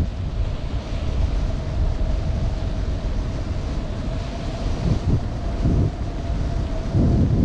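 Wind buffeting the microphone of a kite-borne camera: a rough, gusting rumble that swells louder near the end, with a thin steady hum above it.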